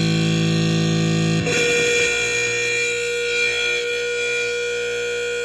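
Noise Demon noise synthesizer putting out a dense, distorted drone; about a second and a half in it switches abruptly to a different, thinner drone with a steady high tone held over it.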